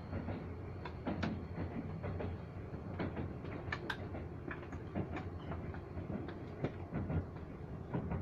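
Keisei Electric Railway commuter train running, heard from inside the car: a steady low rumble with irregular clicks and knocks from the wheels over the track, and a faint high whine over the first few seconds.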